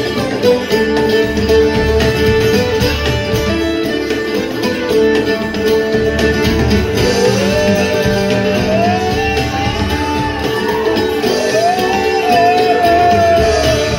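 Live acoustic string band playing loudly, with banjo and acoustic guitar. A lead melody line slides up and down over the band from about halfway through.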